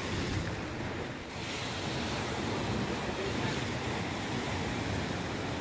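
Sea surf breaking and washing ashore, a steady rush with no let-up, with the water come right up close on the shore. Wind blows on the microphone.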